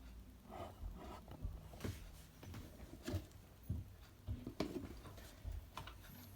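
Faint, irregular clicks and knocks of plastic toy figures being handled and moved about on a desk.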